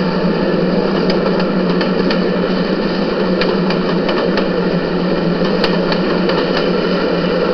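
A steady mechanical drone with a constant low hum and a few faint ticks.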